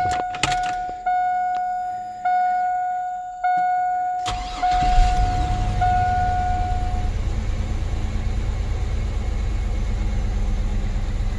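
A dashboard warning chime dings about once a second; about four seconds in, the Chevy S10's Vortec V6 fires with a sudden catch and settles into a steady idle while the chime dies away. The owner feels the idle missing a little and suspects a blown head gasket.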